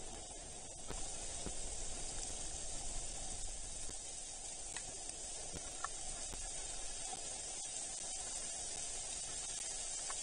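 Steady hiss of rain falling, with a couple of faint short chirps about halfway through.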